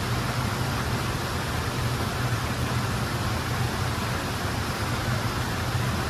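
Artificial indoor rock waterfall, two small cascades splashing steadily into a pool, over a low steady hum.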